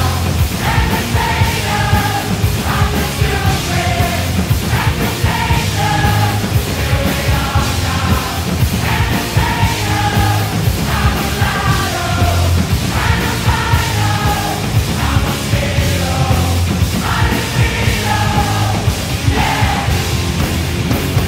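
Rock music soundtrack with a steady driving beat and a melodic line over it.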